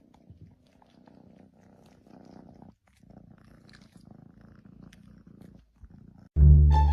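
A cat purring: a soft, low rumble in runs broken by short pauses. Near the end, loud music starts suddenly.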